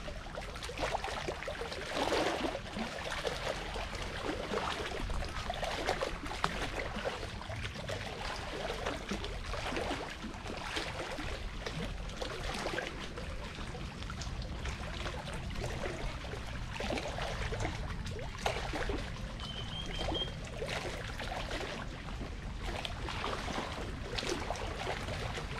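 Small waves lapping against the shore at the water's edge: an irregular run of soft splashes over a steady low rumble.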